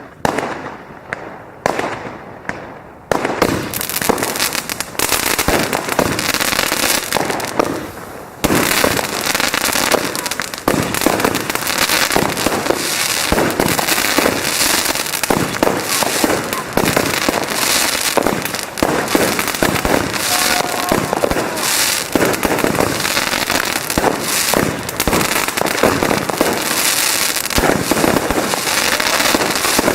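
Fireworks going off: a few separate bangs, then from about three seconds in a dense, unbroken barrage of rapid bangs and crackling.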